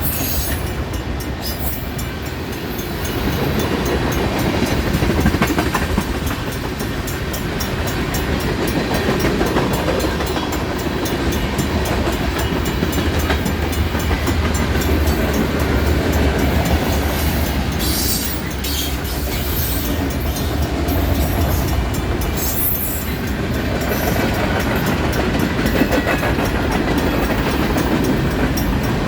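Union Pacific freight train rolling past: a steady rumble of cars with the clickety-clack of wheels over the rails.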